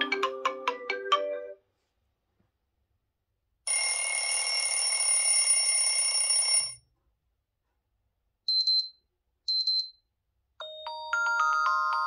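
A run of Xiaomi Mi 11 notification tones played one after another. First the end of a melodic jingle of quick decaying notes, then a pause and a steady buzzy tone lasting about three seconds. After that come two short high beeps, and near the end a new chiming melody begins.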